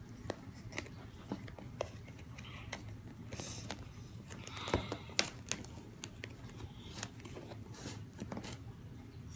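A yellow cloth cover rustling as it is worked off a plastic box, with scattered small clicks and knocks of handling.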